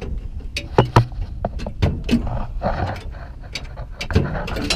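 Metal knocks and clunks as the panel under the seat of a Cat 955K track loader's cab is flipped up and handled, over a steady low rumble.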